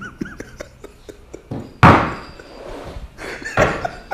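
A man laughing in short, uneven bursts. The loudest is a sudden burst about two seconds in, among small clicks and knocks.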